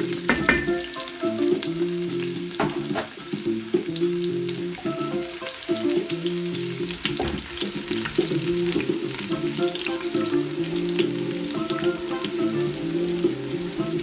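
Garlic sizzling in hot soya oil alongside frying potatoes and carrots, with scattered clicks of a utensil stirring in the pot. Smooth jazz plays underneath.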